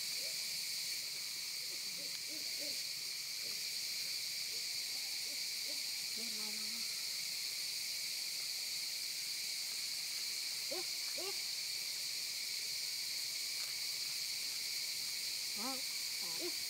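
Steady high-pitched drone of insects in the forest, unchanging throughout. A few faint short rising calls sound about ten seconds in and again near the end.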